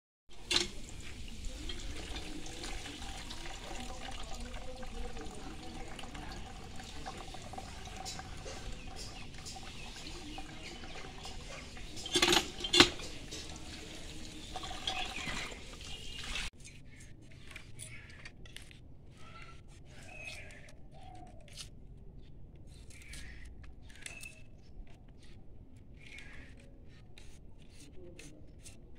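Water gushing from a hand pump's spout, splashing through chopped greens in a plastic colander and into a bucket, with two sharp knocks about twelve seconds in. After about sixteen seconds the water stops abruptly and only faint, short sounds remain.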